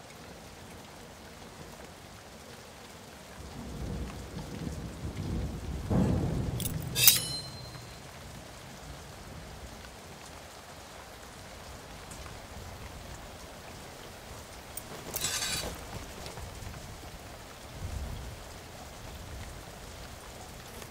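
Steady rain with rolling thunder: a low rumble swells about four seconds in and peaks near six seconds, and a sharp, bright crack comes about seven seconds in. A shorter hiss follows around fifteen seconds and a fainter rumble near the end.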